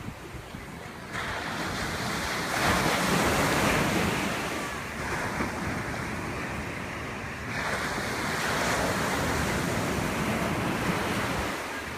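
Ocean surf breaking and washing up the sand among wooden pier pilings, coming in surges: one swells about a second in and is loudest a few seconds in, and another comes near eight seconds. Wind buffets the microphone.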